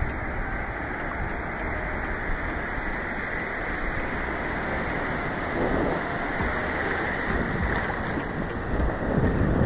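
Steady rush of surf and wind on the microphone, swelling about six seconds in and again near the end.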